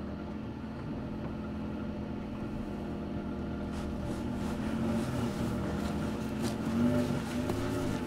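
A pickup truck's engine running steadily. From about halfway through, short scuffs and scrapes of a body moving in dry dirt come over it.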